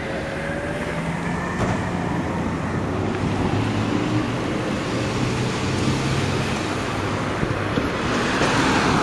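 Road traffic: a motor vehicle's engine and tyres passing close by, with the sound building toward the end.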